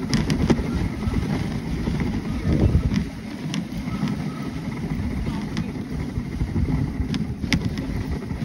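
Steady low rumble of a dog sled's runners sliding over a packed snow trail while the sled is pulled along, with wind on the microphone and a few sharp clicks from the sled.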